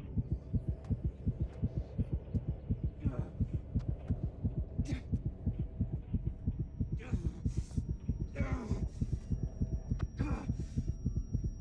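Fast, pounding heartbeat sound effect with evenly spaced low thumps, the racing heart of a speedster straining after a sprint. Heavy gasping breaths come in a few times in the second half, and a thin high ringing tone joins about halfway.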